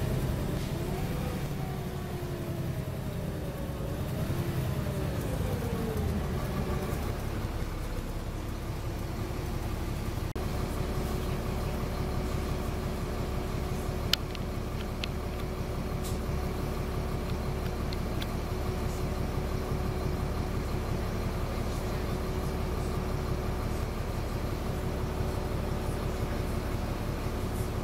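Diesel engine and drivetrain of a Volvo B7LA articulated bus, heard from inside the passenger cabin. For the first few seconds the engine pitch rises and falls as it works through the gears, then it settles into a steady drone. There is a single sharp click about halfway through.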